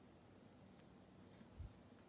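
Near silence: room tone with a faint steady low hum, and one soft low bump about one and a half seconds in.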